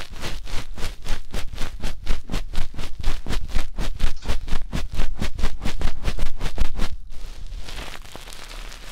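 Fast, even thumping strokes, about five or six a second, made by hand on the ear pieces of a binaural dummy-ear microphone: the 'helicopter' tuk-tuk ASMR trigger. The strokes stop about seven seconds in, and a softer scratchy rustling on the microphone follows.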